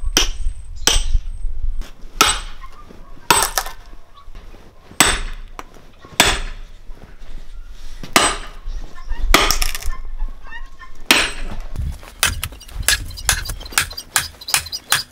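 Axe blows chopping into an old dry wooden stump to break it apart: heavy chops a second or more apart, coming faster for the last few seconds.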